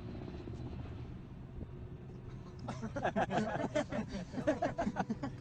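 A steady low motor hum, with indistinct voices talking from about three seconds in.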